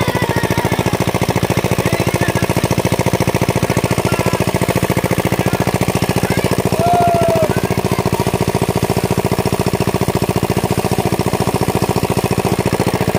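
Small engine of a portable irrigation pump set running steadily with a fast, even chugging.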